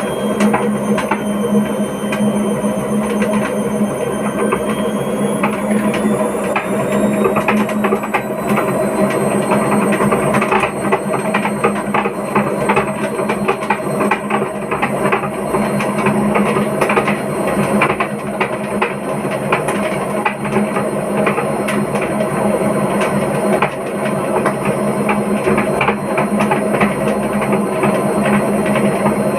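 Hotpoint Ariston washing machine on its spin cycle, knocking heavily. A motor whine rises in pitch over the first several seconds as the drum speeds up, then holds steady under a constant fast clatter of knocks and rattles.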